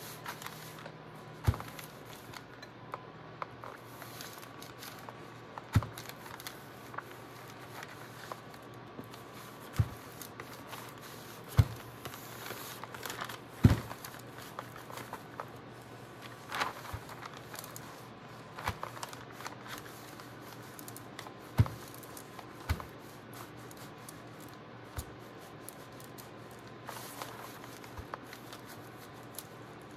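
Waxed brown packing paper crinkling and rustling as a household iron is slid over it and the sheet is handled, with scattered sharp knocks, the loudest about 14 seconds in, over a faint steady hum.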